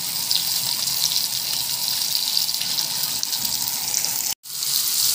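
Flour-coated tilapia frying in hot oil in a pan: a steady sizzling hiss, which cuts out for an instant about four seconds in.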